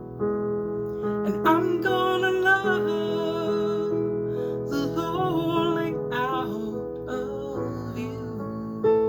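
A slow, gentle song: a woman's voice sings wavering held phrases over long sustained chords from an instrumental accompaniment.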